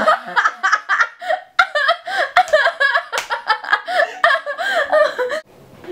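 People laughing, a rapid high-pitched run of giggles that breaks off abruptly near the end.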